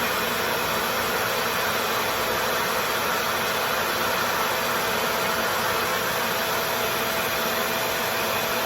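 Revair reverse-air hair dryer running steadily: a loud, even rush of air with a faint steady hum in it, as the vacuum wand sucks the hair in and holds it taut to dry it.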